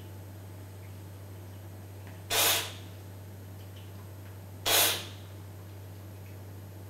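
Two short, sharp hissing slurps of air sucked in through the teeth, a little over two seconds apart: the 'strippaggio' of olive-oil tasting, drawing air over extra virgin olive oil held in the mouth to spread it across the palate.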